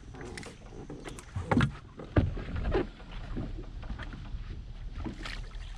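Knocks and thumps on a bass boat's deck, the loudest two about a second and a half and two seconds in, over a steady low rumble of water and wind against the hull.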